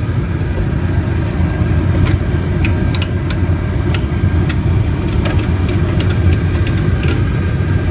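Chevrolet Silverado cabin blower fan running steadily with a low hum and a faint steady whine, with no rattle or chirp: the new fan motor has cured the worn-bearing noise.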